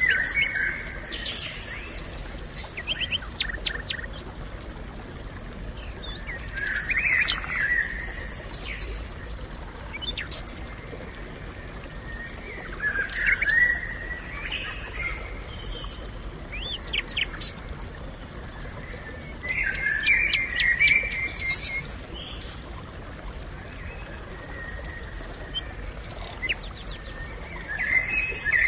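Woodland birds singing: a short song phrase returns about every six or seven seconds, with thin high chirps from other birds in between, over a steady low background hiss.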